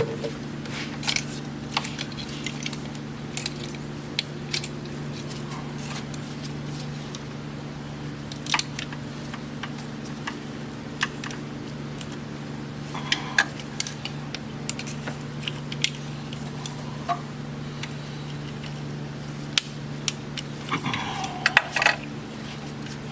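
Scattered light metallic clicks, taps and clinks of hand tools and small parts being handled, heaviest in a cluster near the end. Under them is a steady low hum.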